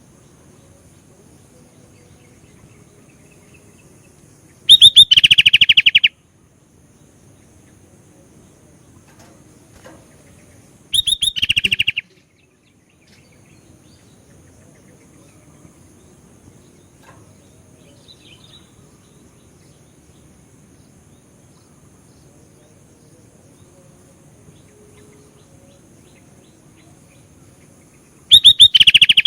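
Sooty-headed bulbul (kutilang) singing three loud bursts of very fast repeated notes, each about a second long, with long pauses between them.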